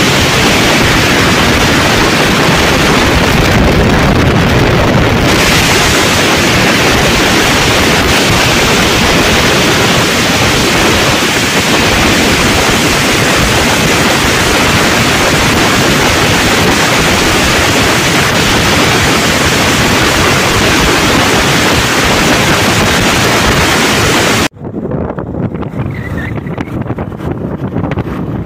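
Heavy wind rush on the microphone of a Yamaha Lander 250 motorcycle at highway speed, about 108 km/h. The wind rush covers any engine sound. About 24 seconds in it drops suddenly to a much quieter wind and road noise.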